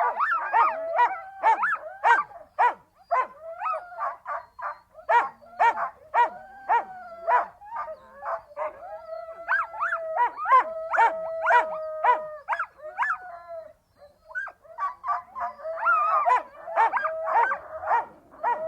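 Siberian huskies vocalising in a rapid string of short, high-pitched yips and barks, mixed with longer held howling notes that overlap at different pitches. There is a brief pause about two thirds of the way through.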